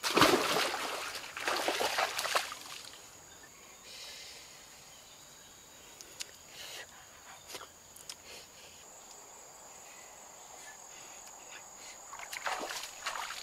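Water splashing loudly as a person drops into shallow flood water, then another round of splashing and wading about two seconds in. After that a faint, steady, high insect drone runs under a few small clicks, and there is more splashing or rustling near the end.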